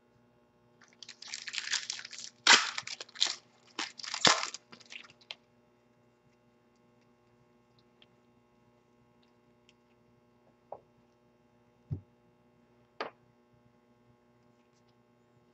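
Foil wrapper of a football trading-card pack crinkling as it is torn open, for about four seconds. A few faint clicks of cards being handled follow.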